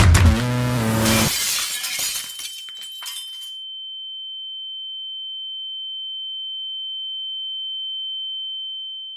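Music stops about a second in as a crash of shattering glass dies away. A single steady high-pitched tone, a ringing effect, is left over the silence. It slowly grows louder for several seconds, then fades out near the end.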